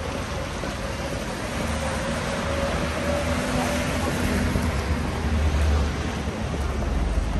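Street traffic on a wet road: a steady hiss with a heavy low rumble, and a vehicle's engine hum going by from about one and a half to four and a half seconds in.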